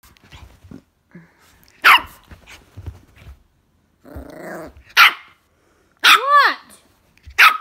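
Jack Russell x Maltese puppy barking frantically: three sharp, loud barks with a low growl just before the second, and a high yelping bark that rises and falls in pitch between the last two.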